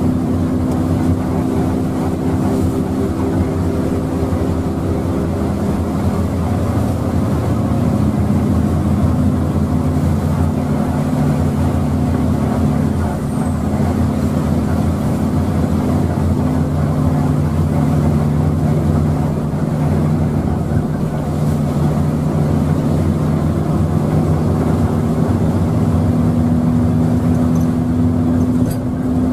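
Intercity bus engine droning steadily while cruising, heard from inside the cabin, over a steady noise. The engine note shifts a little about a third of the way in.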